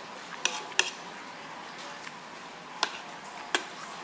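Cutlery clinking against a plate during a meal: four sharp clinks, two close together near the start and two more near the end, over steady background noise.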